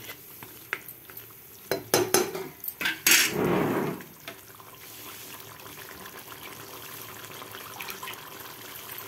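A metal spoon stirring chicken curry in a metal pot, clinking against the pot several times with a louder scrape a little after three seconds. After that the curry simmers with a steady soft hiss and faint bubbling.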